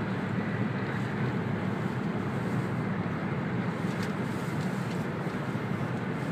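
Steady running noise of an E2 series Shinkansen heard from inside the passenger cabin at speed: an even low rumble with a hiss over it and a few faint clicks about four seconds in.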